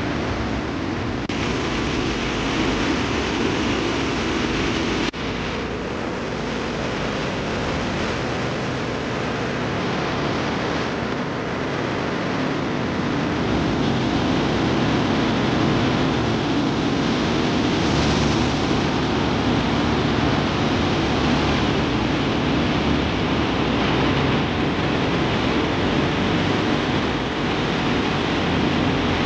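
Floodwater rushing in a swollen river, a steady continuous noise. The sound changes abruptly about one second and five seconds in, where clips are cut together.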